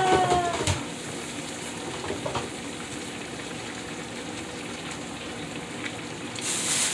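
Cube steaks frying in hot oil: a steady sizzle.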